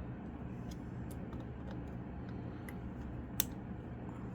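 Small wire cutters and a circuit board being handled while trimming component leads: scattered light clicks and ticks, with one sharper snip-like click about three and a half seconds in, over a steady low hum.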